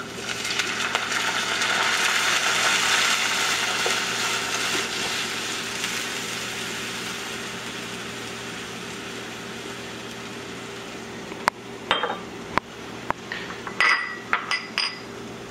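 Dark lager poured into a hot pot of softened shallots and garlic, hissing and fizzing as it hits the pan and foams up. The hiss swells over the first few seconds, then slowly dies away. A few sharp clinks come near the end, over a steady low hum.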